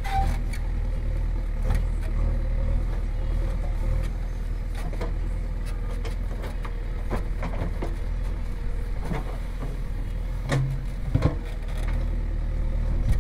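JCB backhoe loader's diesel engine running steadily under load as the backhoe digs a trench, with a handful of sharp knocks and clanks from the digging arm and bucket.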